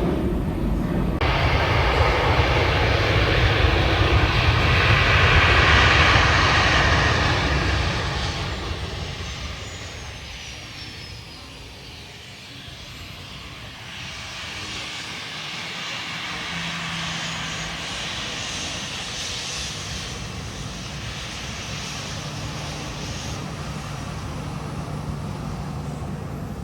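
Jet airliner engines passing close, swelling to a peak about six seconds in and then fading away. A quieter, steady jet engine hum with a low tone follows.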